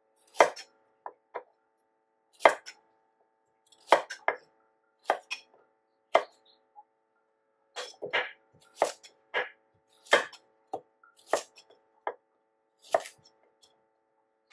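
Chef's knife chopping a carrot into chunks on a wooden cutting board: sharp knocks of the blade through the carrot onto the board, irregular, about one or two a second, some in quick pairs.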